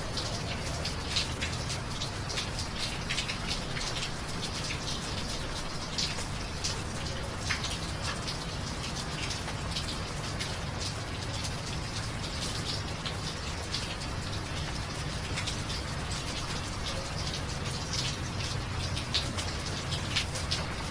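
Steady rain falling, with many distinct drops ticking close by at irregular moments over an even hiss and a low steady rumble.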